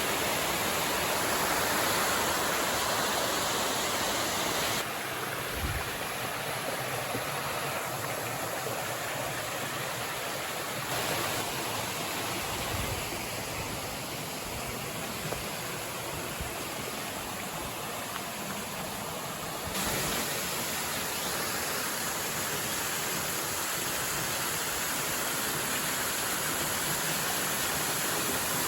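Small waterfall on a mountain stream: water pouring and splashing in a steady, even rush, stepping quieter about five seconds in and louder again near twenty seconds.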